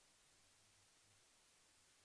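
Near silence: only a faint steady hiss with a low hum.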